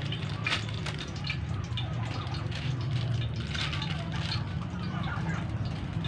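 Kitchen handling sounds: an instant-noodle packet rustling and cookware clinking in short scattered clicks over a steady low hum.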